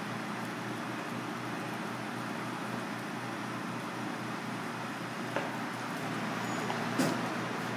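Steady background hum and hiss, with two short clicks in the second half, the second one louder.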